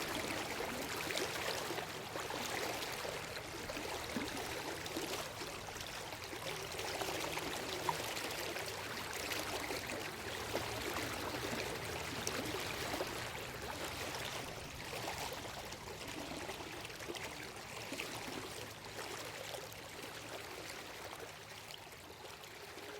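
Running water flowing steadily, an even rushing and trickling sound that eases a little toward the end.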